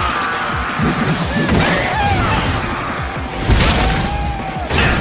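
Dramatic soundtrack music mixed with action sound effects, with a heavy impact about three and a half seconds in.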